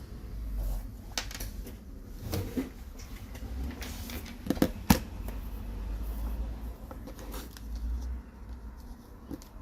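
Handling noise of a smartphone on a work bench: scattered light knocks and clicks over a low rumble, the loudest a quick run of clicks about four and a half to five seconds in.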